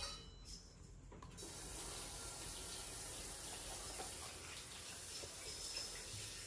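Steady hiss of running water, like a tap left running, starting about a second and a half in.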